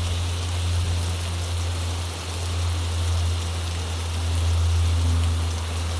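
Creek water running steadily, a continuous even rush, with a steady low hum underneath.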